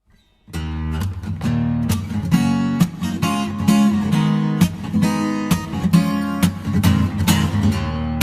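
Acoustic guitar strummed in a steady rhythm, starting about half a second in: the instrumental intro of a song.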